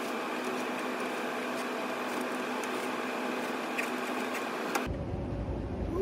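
Steady mechanical hum with several fixed tones from rooftop HVAC and refrigeration equipment running, with a few light metallic clicks from work inside the disconnect box. About five seconds in, the hum cuts off and wind rumbles on the microphone.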